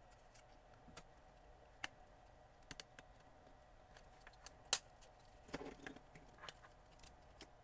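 Small plastic clicks and light handling noise as an opened Fluke 88 multimeter's case and circuit board are handled and turned over by hand. One sharp click a little past halfway is the loudest, followed by a brief rustle.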